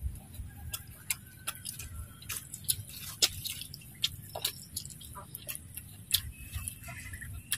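A person chewing a mouthful of crispy fried duck close to the microphone: a string of faint, irregular clicks and crunches.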